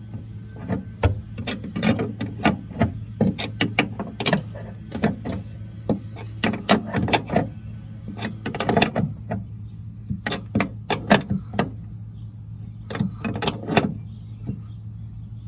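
A wrench and groove-joint pliers working a bolt through a truck-bed mount: a run of irregular metallic clicks and taps as the bolt is tightened, over a steady low hum.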